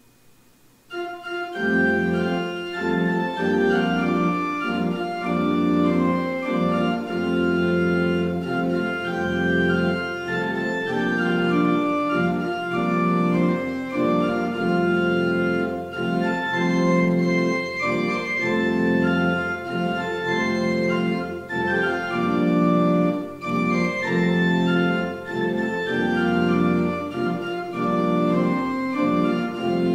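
Pipe organ starting up about a second in and playing a closing postlude in full, sustained chords.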